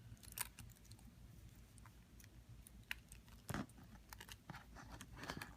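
Faint handling noises of a small bag charm being turned over by hand: a few light clicks and taps over a low room hum.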